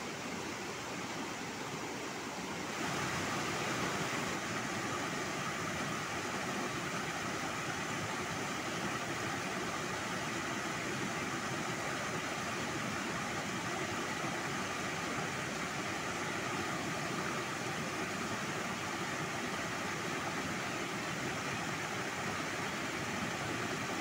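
Mountain river rushing over boulders in small cascades: a steady, even wash of white-water noise that steps up a little louder and brighter about three seconds in.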